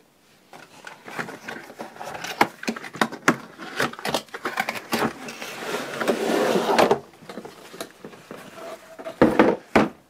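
Cardboard box being opened and a hard plastic carry case slid out of it: rustling and scraping with many small knocks, a longer sliding scrape about midway, then a few heavier knocks near the end as the case is set down on the wooden desk.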